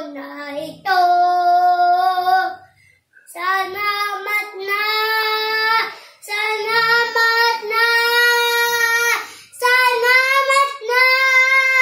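A young boy singing with no accompaniment: long, held notes in several phrases, separated by short pauses for breath.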